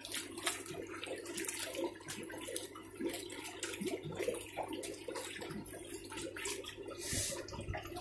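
Dry ice bubbling and fizzing in water, an irregular, continuous gurgle as it sublimates into thick fog.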